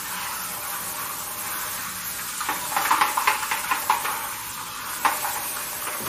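Kitchen tap running into a sink while a floor cleaner's plastic tank part is rinsed under it. Clusters of light knocks and clatter from the plastic part against the sink come midway and again about five seconds in.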